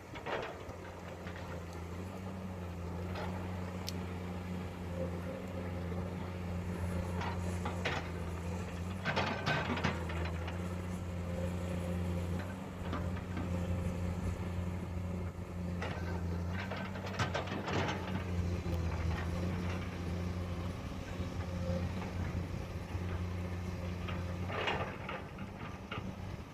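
Heavy diesel earthmoving machinery running steadily at work, with intermittent metallic clanks and knocks every few seconds.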